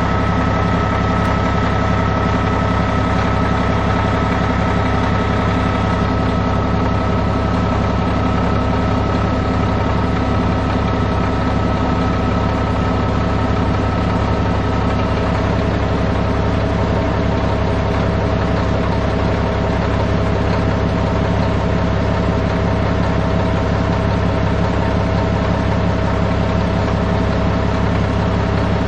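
Heavy diesel engine of earth-moving equipment running steadily at a constant speed, with a thin whine above it that drops to a lower pitch about halfway through.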